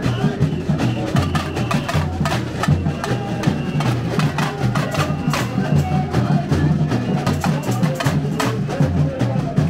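Samba bateria drumming: surdo bass drums pound a steady low pulse under dense, fast snare, tamborim and shaker strokes in an even samba rhythm.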